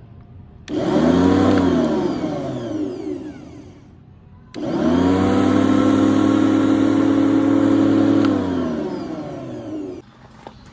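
Daewoo DLM1400E electric lawn mower's motor and blade spinning up and winding down twice. About a second in it starts with a quick rise in pitch and then winds down. About four and a half seconds in it starts again, runs at a steady whine for about three seconds, then winds down in pitch and cuts off near the end.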